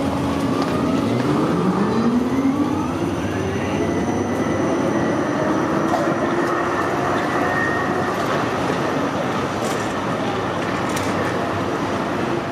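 Electric tram's traction motors whining, the pitch rising steadily over a few seconds as it accelerates, then holding a steady whine, over constant city street noise.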